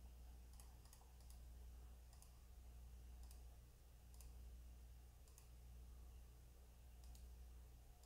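Faint computer mouse clicks, spaced irregularly about once a second or less, over a steady low hum in near silence.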